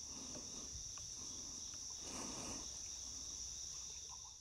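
Woodland insect chorus: a steady, high-pitched shrill that holds throughout, with a faint rustle about two seconds in.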